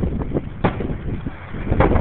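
Fireworks exploding overhead: several sharp bangs, the strongest about two-thirds of a second in and another near the end, over a low rumble, with wind buffeting the microphone.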